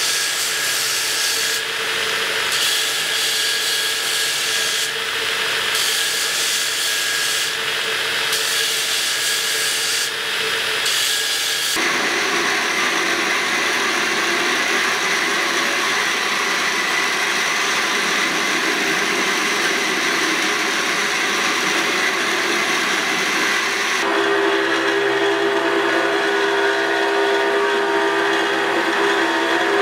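Electric belt grinder running, with metal pressed against the abrasive belt: a continuous grinding hiss over a steady motor hum. The sound changes abruptly twice, about twelve and twenty-four seconds in, as the grinding shifts from the wide belt to a narrow belt over a small wheel.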